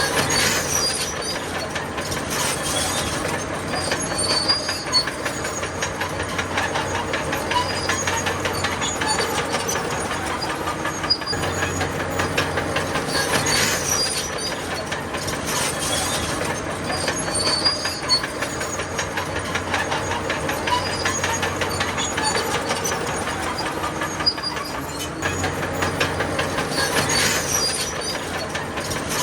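Crawler bulldozer working: its diesel engine runs under a constant clatter of steel tracks, with repeated high squeals from the track links and rollers.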